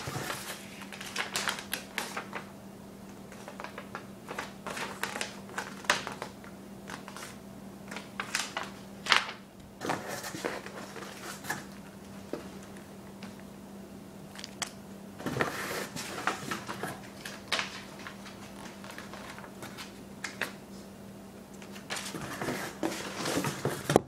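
Hands rummaging in a cardboard shipping box: irregular crinkling, rustling and tapping of cardboard and paper, over a steady low hum.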